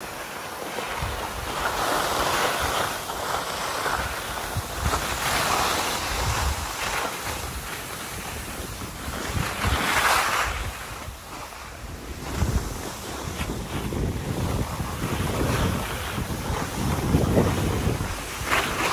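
Skis hissing and scraping over groomed snow, the hiss swelling and fading every few seconds through the turns, with wind buffeting the microphone in low rumbling gusts.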